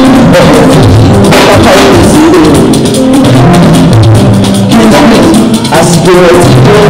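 Loud live band music: a drum kit and a talking drum keep a steady beat under a singer on a microphone.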